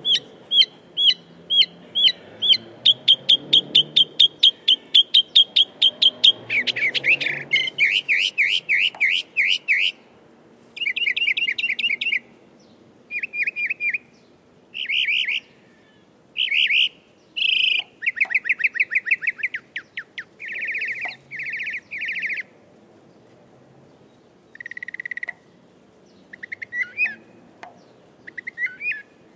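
Northern mockingbird singing a long run of varied phrases, each a quick series of repeated notes. The first phrase speeds up over several seconds, the next is a harsher, rapid run, and the bird then moves to a new phrase every second or two with short pauses between them.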